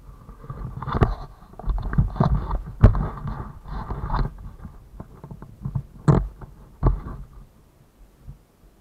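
Handling noise close to a helmet-mounted camera: irregular rustling and scraping with several sharp knocks. The loudest knocks come about three seconds in and about six seconds in, and the noise dies away near the end.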